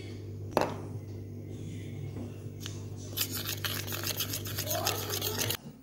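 A steel spoon in a small stainless steel bowl, mixing face pack powder: one clink about half a second in, then quick, rhythmic scraping strokes from about halfway until they stop suddenly near the end. A steady low hum runs underneath.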